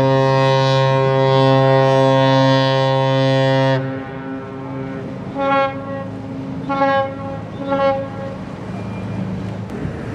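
Ship's horn sounding one long blast of about four seconds, then three short blasts about a second apart.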